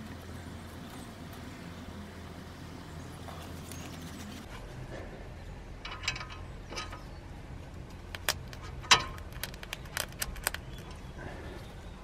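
A screwdriver tip clicking and scraping inside the slider-pin bore of a 2013 Suzuki Alto's front brake caliper as the old grease is dug out. The sharp metallic clicks are scattered and come thickest in the second half, over a low steady hum.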